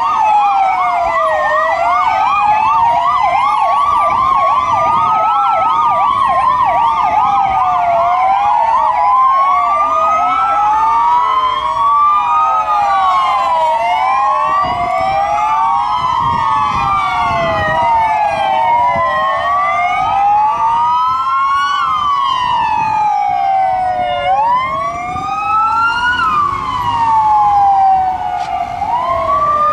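Sirens of several Belgian police cars responding together, their wails rising and falling out of step with one another, with a fast yelp through the first several seconds. Vehicle noise runs underneath.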